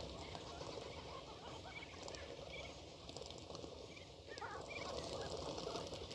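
A flock of sandgrouse calling, many short overlapping gurgling calls that grow denser about four seconds in.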